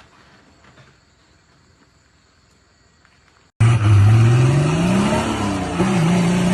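Faint low background noise, then an abrupt cut about three and a half seconds in to an off-road vehicle's engine running loud and revving, its pitch climbing and then holding steady.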